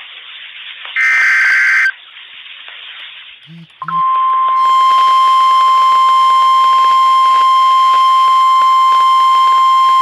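Emergency Alert System SAME header: a harsh one-second digital data burst about a second in. Then, about four seconds in, the steady single-pitch NOAA Weather Radio warning alarm tone starts and holds, the signal that a new warning is about to be read.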